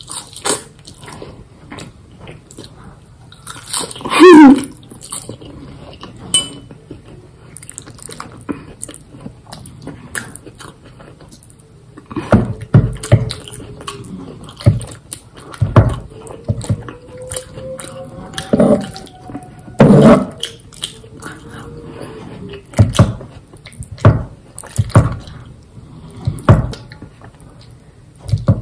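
Mukbang eating sounds: a metal fork clicking and scraping against a small stainless steel bowl and plate, with wet chewing and smacking of saucy pasta. A brief falling pitched sound comes about four seconds in.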